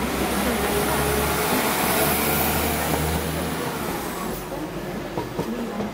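London Overground Class 172 diesel multiple unit running past close by, its engines giving a steady low drone with a high hiss over it. The drone cuts off about three and a half seconds in and the hiss fades a second later.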